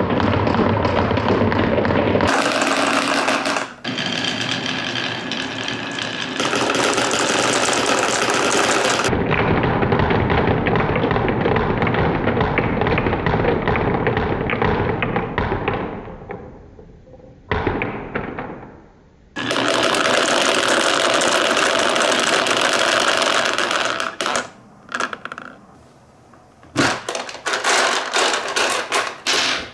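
Dozens of marbles rolling and clattering down a HABA wooden slope track and onto the plastic ramp of a toy ambulance: a dense rattle, broken by several abrupt cuts. Near the end come separate sharp clicks and knocks as the toy ambulance's plastic door and ramp are handled.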